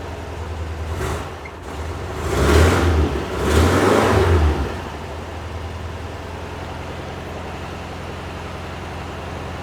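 1974 VW bus's air-cooled flat-four engine idling steadily, revved up twice in quick succession a couple of seconds in, then settling back to idle.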